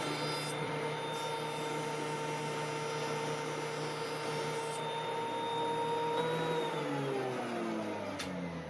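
Electric hand planer running steadily while planing proud T-tracks down flush with the tabletop, then switched off about six seconds in, its motor pitch falling as it spins down. A single sharp click near the end.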